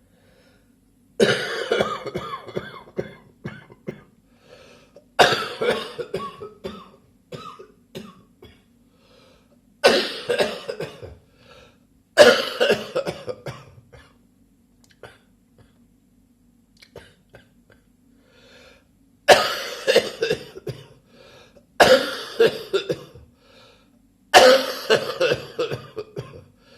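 A man coughing in repeated fits, about seven bouts, each starting with a hard cough and trailing off into smaller ones, with pauses between: a lingering cough three weeks after a chest infection.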